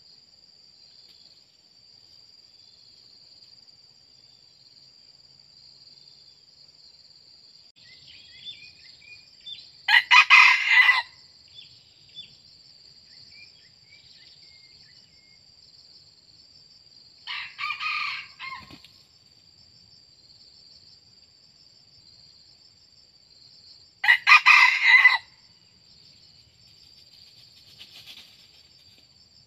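Red junglefowl roosters crowing three times, each crow about a second long and roughly seven seconds apart, the middle one quieter. A steady high-pitched insect drone runs underneath.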